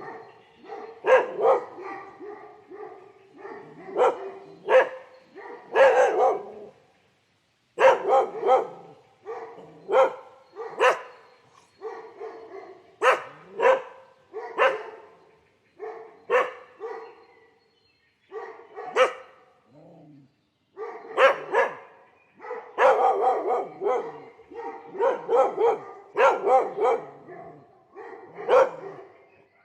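A dog barking repeatedly in irregular runs of short, sharp barks, with brief pauses between the runs.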